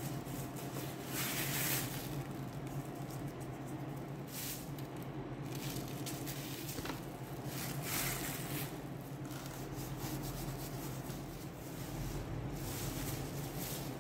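Plastic sheet crinkling and rustling in several short bursts as floured dough is pressed and lifted on it, over a steady low hum.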